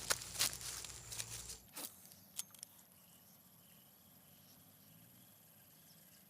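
Rustling and clicking handling noise for about the first second and a half, stopping abruptly. After that, quiet outdoor background with a faint insect buzz.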